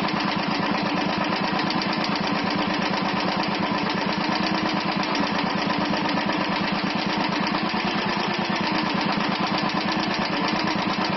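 Royal Enfield Thunderbird 350's single-cylinder engine running steadily with a fast, even ugly-sounding tick from the top end: the hydraulic lifter noise that the owner blames for the harsh sound.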